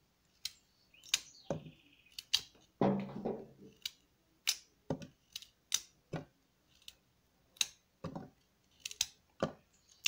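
Carrot pieces dropped one at a time into a clear plastic hand-blender beaker, each landing with a sharp click, irregularly about one or two a second. There is one longer, lower sound about three seconds in, and a faint bird chirp about a second in.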